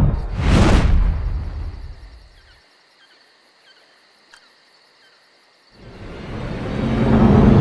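A loud whoosh that fades away over about two seconds. It leaves a quiet night ambience of crickets chirping steadily. About six seconds in, music swells back up.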